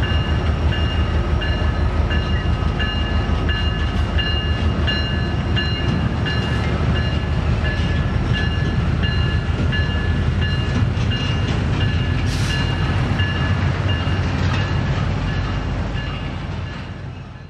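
Diesel freight locomotives and double-stack container cars passing close: a steady deep engine rumble with rattling wheel noise, and a bell ringing about twice a second over it. The sound fades and cuts off at the end.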